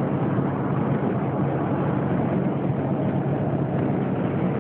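Steady road and engine noise inside a moving car's cabin, an even rumble with a low hum that does not change.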